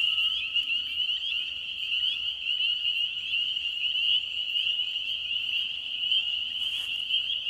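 A dense chorus of many frogs calling at once: a continuous high-pitched shrilling, made of countless overlapping notes, that sounds like a car alarm.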